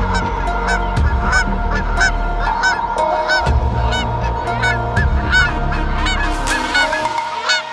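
Geese honking over and over, two or three calls a second, over background music with held tones and a deep bass that drops out near the end.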